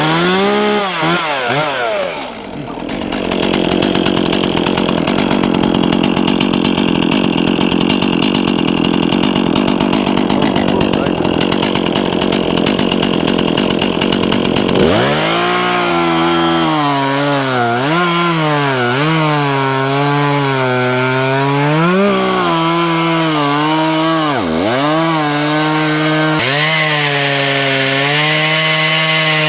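Two-stroke chainsaw running, its engine pitch rising and falling with the throttle. From about 3 to 15 seconds in it gives way to a long, dense rasping stretch, the chain cutting through a log.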